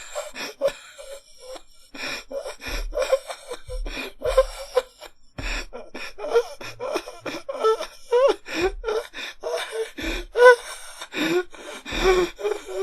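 A person gasping and panting for breath: a rapid series of short, ragged, noisy inhales and exhales, many with the voice catching in a strained, pitch-bending sound.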